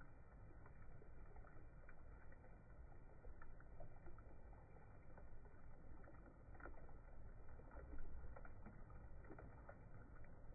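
Faint sizzling with scattered small pops and crackles from chicken frying in oil in a nonstick pan as a wet green chutney paste is poured over it, with one louder pop about eight seconds in.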